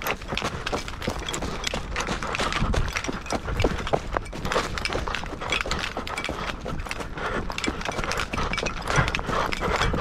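Quick, irregular footsteps and rustling of hunters hurrying on foot through the field to get into the blind, with a low rumble underneath.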